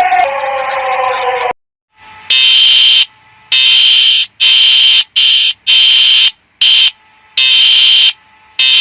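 Emergency alert alarm tones. First a tone glides downward and cuts off after about a second and a half. After a short gap, a high-pitched electronic beep repeats about eight times in an uneven pattern of long and short beeps.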